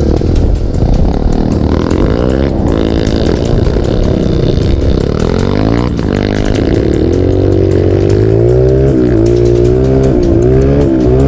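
Four-stroke single-cylinder dirt bike engine riding through sand, its revs rising and falling over and over as the throttle is worked.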